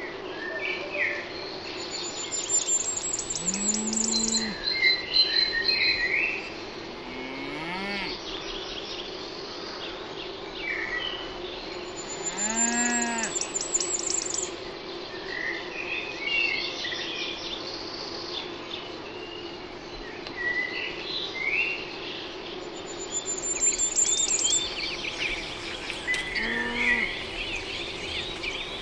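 Cattle mooing four times: two longer low moos and two short ones. High bird chirps and quick trills run between and over them.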